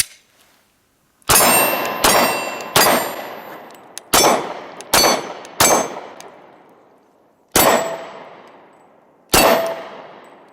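Glock 23 Gen 4 .40 calibre pistol fired eight times, each shot followed by a long metallic ring from hits on steel plate targets. Six shots come in quick succession, then two more with longer pauses between them.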